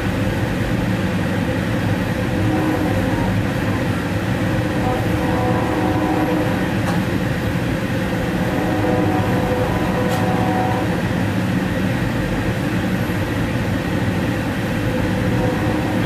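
Amtrak passenger train running, heard from inside its Superdome lounge car: a steady rumble of the moving train with a low hum of a few steady tones.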